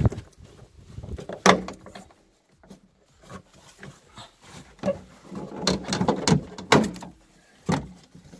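Plastic clicks, knocks and scrapes from a Skoda Octavia 2's third brake light housing and surrounding trim being worked by hand to free its clips: one sharp click about a second and a half in, then a cluster of clicks and scrapes from about five to seven seconds.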